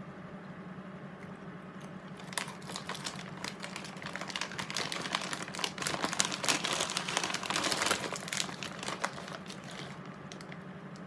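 Snyder's pretzel bag crinkling as a hand rummages in it for pretzels. It starts a couple of seconds in, is loudest around the middle and dies away about a second and a half before the end.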